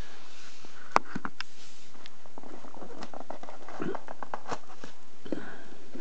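Handling noise as a small electronic meter is lifted out of a cardboard box and set down on a wooden table: one sharp knock about a second in, then scattered lighter clicks and rustles.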